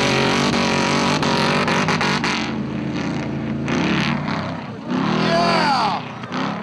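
Off-road rock-race buggies' engines revving hard under full throttle, their pitch climbing and dropping with the throttle, with a run of sharp clicks about a second in. Near the end one engine revs up and falls away again.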